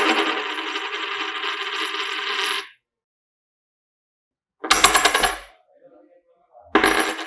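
Metal coins dropped on a hard surface: the first one rings and rattles for nearly three seconds before settling, then two shorter ringing clinks follow, about five and seven seconds in.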